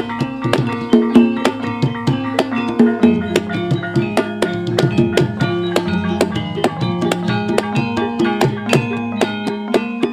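Javanese gamelan music in Ponorogo style (gending Ponorogoan), instrumental: kendang hand-drum strokes, fast and dense, over ringing bronze metallophone tones.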